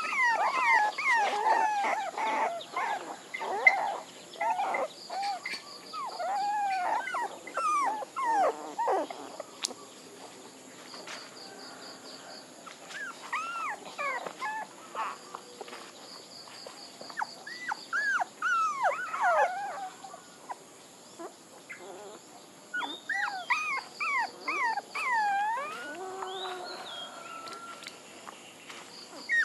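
Young puppies whimpering and crying, short high-pitched whining calls that rise and fall, in bouts with short lulls between.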